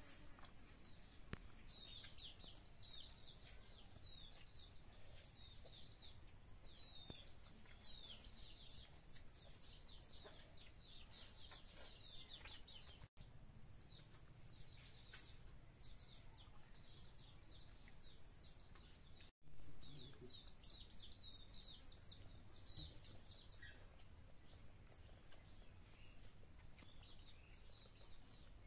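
Young chickens peeping: faint, rapid runs of short, high, falling peeps, repeated all through. A brief low thump about two-thirds of the way through.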